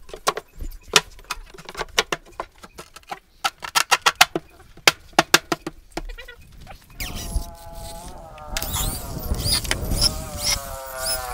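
Plywood panels being fitted into a subwoofer cabinet give a run of sharp, irregular knocks and clicks, some in quick clusters. From about seven seconds in, a handheld electric drill whines as it drives screws into the plywood, its pitch wavering.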